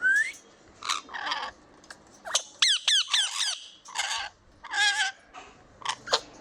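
Lovebird chirping and squawking in a rapid string of short, high-pitched calls, with a quick run of three falling whistles about two and a half seconds in.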